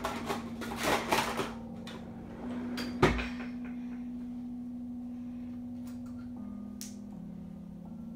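Rummaging in a wooden desk drawer: a couple of seconds of clattering and rustling of things being handled, then one sharp knock about three seconds in as the drawer is pushed shut. A low steady hum runs underneath, its pitch stepping down near the end.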